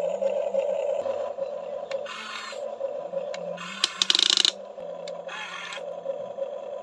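Small electric motors of a radio-controlled toy excavator whining in short runs that stop and start as the controls are worked, with bursts of gear rattle and grinding; the loudest, a rapid clatter, comes about four seconds in.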